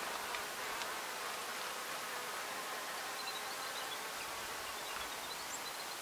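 Steady outdoor ambience of insects buzzing around the spring, with a few faint high chirps in the middle.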